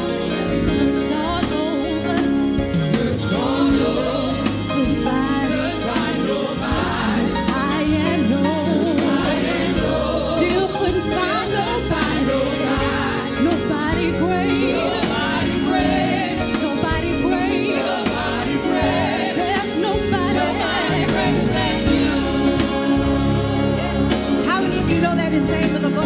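Gospel choir singing, with a lead singer's voice bending up and down over the choir's sustained chords.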